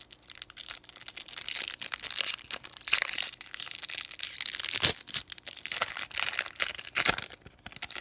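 Foil booster-pack wrapper crinkling and tearing as it is ripped open by hand, a dense crackle of many small clicks that stops about seven seconds in.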